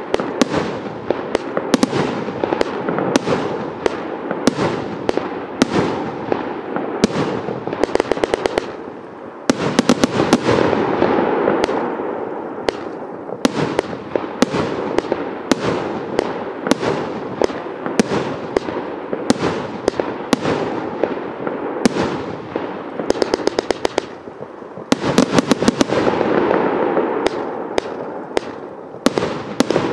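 Evolution Fireworks 'Avatar' multi-shot firework cake firing a steady stream of shots, sharp bangs one after another over a continuous hiss. Quick runs of rapid pops come about eight seconds in, about twenty-three seconds in and near the end.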